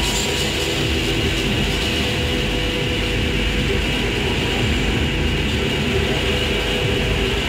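Live electronic noise/ambient performance: a dense, rumbling drone texture with a steady hiss layered over it and a few held tones, with no clear beat.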